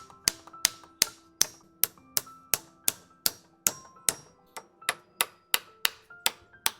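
Hammer driving nails into a wooden gate frame, with steady blows at about three a second that vary in force, over background music.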